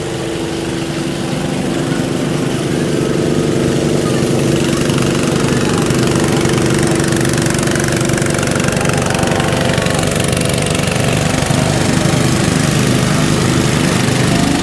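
Livestock blower running steadily, a loud motor hum under a wide rush of air, blowing over a cow's coat to dry it after washing. It builds up over the first few seconds and wavers in pitch near the end.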